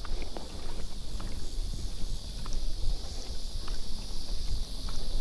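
Wind buffeting the microphone in an uneven low rumble, over a steady high insect hiss, with scattered faint light clicks.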